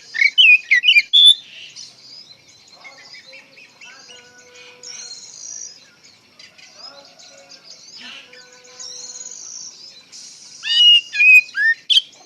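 Oriental magpie-robin (kacer) in full, vigorous song. Loud whistled phrases of rapidly sweeping notes come in the first second and a half and again near the end, with softer twittering and quieter phrases between.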